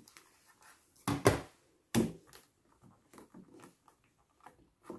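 Plastic stamping platform and clear photopolymer stamps being handled: a few sharp clacks about a second and two seconds in, then light scattered taps as the stamps are set down.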